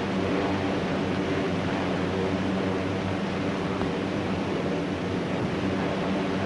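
Steady low drone of airship engines in flight, with a constant hiss over it.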